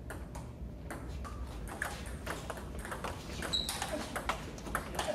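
Table tennis rally: the celluloid-type ball clicking sharply off the paddles and the table in a quick back-and-forth, roughly two to three ticks a second, with a short high squeak about three and a half seconds in.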